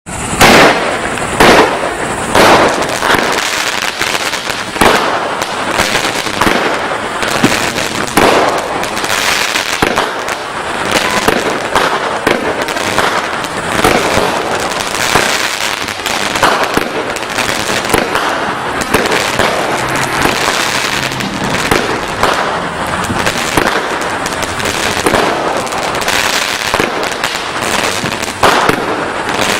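Black Magic consumer fireworks cake, a 25-shot cake with tailed shells, firing shot after shot: a long run of sharp bangs over a steady crackling noise, with the loudest bangs in the first two seconds and again near the end.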